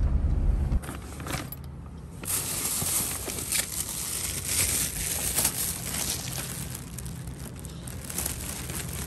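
Insulated food delivery bag with a foil lining and a paper receipt rustling and crinkling as it is handled, with scattered small knocks. A low car rumble stops abruptly about a second in.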